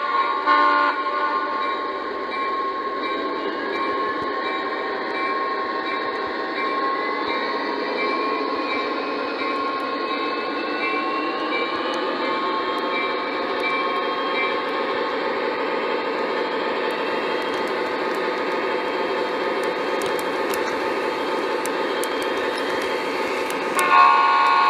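Lionel Conrail SD80 O-gauge model diesel locomotive running on its track, its onboard sound system playing a steady diesel engine sound through a small speaker. The electronic horn blows briefly in the first second and again about a second before the end.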